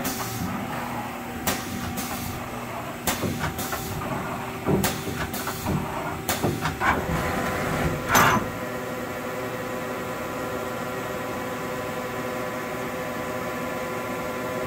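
Haas SL-10 CNC lathe running: a series of sharp mechanical clunks and clicks over the first eight seconds or so, then a steady hum with a layered electric whine.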